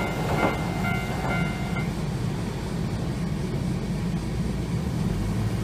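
Japanese railway level-crossing warning bell ringing in a fast repeating two-tone pattern, cutting off about two seconds in as the crossing clears after a tram has passed. A steady low rumble runs underneath.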